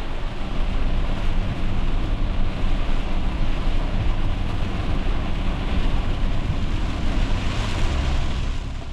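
A van driving through heavy rain, heard from inside the cab: a steady rush of rain and tyre spray over a low road rumble.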